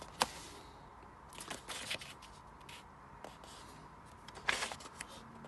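Soft paper rustling and handling noise from the pages of a paperback manga volume being touched and turned: a sharp click just after the start, a few short rustles around two seconds in, and a louder rustle near the end as a page is turned.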